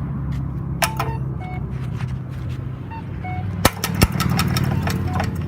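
Vehicle engines running steadily in traffic, a constant low hum, with a few short high blips. From about three and a half seconds in comes a run of sharp clicks.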